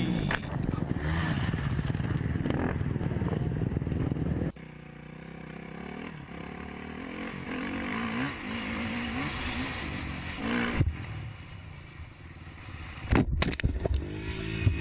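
Off-road motorcycle heard through a helmet camera: loud rushing noise of a bike going down, then, after a cut, a dirt bike engine rising and falling in pitch through the throttle and gears. Sharp knocks and thuds come near the end as the rider crashes into the dirt.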